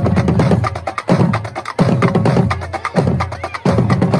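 Marching drumline of snare drums, tenor drums and bass drums playing a cadence: dense rapid stick strokes with heavier low bass-drum hits about once a second.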